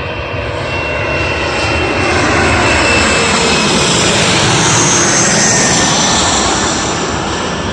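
Landing airliner passing low overhead, its engine noise swelling over the first couple of seconds, holding loud through the middle and easing off near the end, with a whine that slides down in pitch as it goes by.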